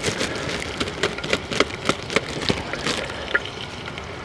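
Raw chicken pieces sizzling in hot oil in a billy pot, a steady hiss with many sharp crackles and spits as the meat hits the pan.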